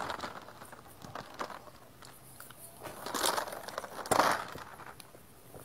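A person drinking from a plastic bottle: a few short noisy slurps and crinkles of the plastic, the loudest about four seconds in.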